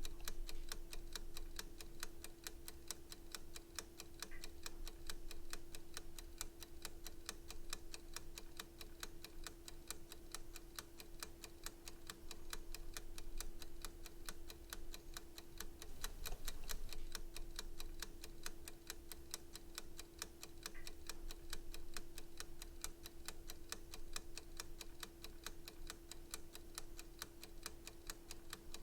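Timer ticking, rapid and even at several ticks a second, over a steady hum that drops out briefly about halfway through.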